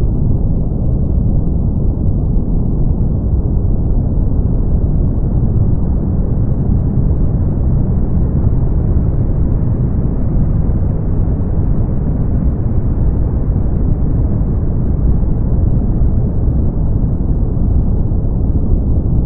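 Brown noise: a steady, deep rushing hiss weighted heavily toward the bass, with no tones or breaks. Its upper edge brightens slightly around the middle, then settles back.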